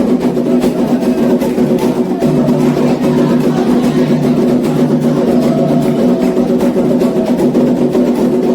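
Candomblé xiré ritual music: hand drums beating a steady rhythm under held pitched notes.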